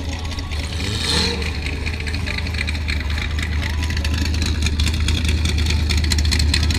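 Third-generation Chevrolet Camaro's engine idling with a steady, loud low rumble.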